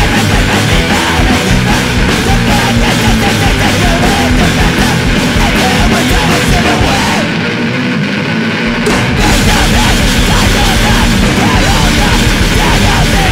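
Hardcore punk band playing a fast, loud song with distorted guitars and drums. About seven seconds in, the low end and cymbals drop out for roughly two seconds, then the full band comes back in.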